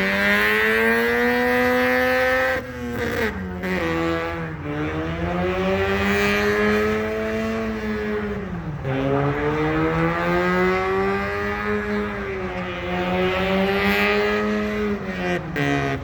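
Car engine held at high revs in a burnout, the pitch sagging and recovering in three long pulls with brief lifts off the throttle between them.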